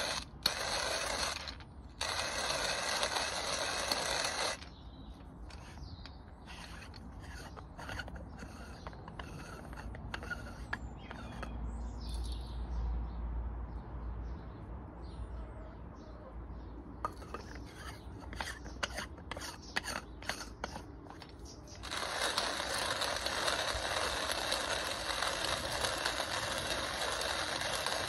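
Hand-cranked coffee grinder grinding beans, with two short stops in the first few seconds. The grinding stops about four seconds in, giving way to light clicks and taps as the mill is handled and opened. The grinding starts again about 22 seconds in.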